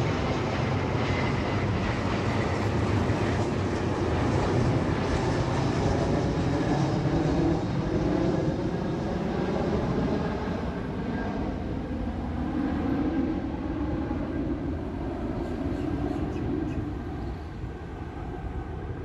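Jet airliner engines passing on approach to land, a broad roar with a whine that slides slowly down in pitch, fading away over the last few seconds.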